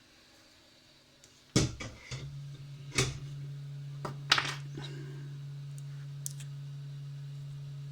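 A few sharp knocks and clatters of tools being picked up and put down on a workbench. A steady low hum starts about two seconds in and keeps going.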